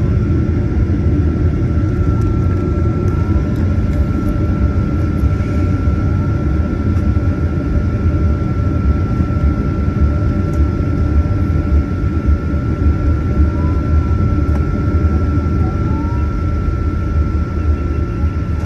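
Cabin noise aboard a Boeing 737-900ER: a steady low rumble of its CFM56-7B jet engines and airflow, with a thin steady whine held through it.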